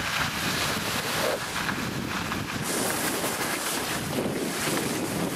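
Wind rushing over the microphone of a camera carried by a downhill skier, mixed with the steady hiss and scrape of skis sliding over snow.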